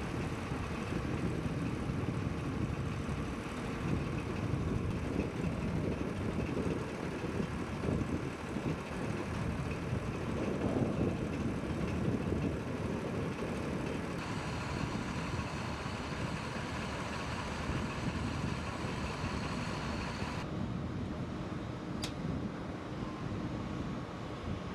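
Steady low rumble of heavy ground equipment engines running, with one sharp click near the end.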